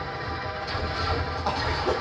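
Film soundtrack music playing, with a strong pulsing low end.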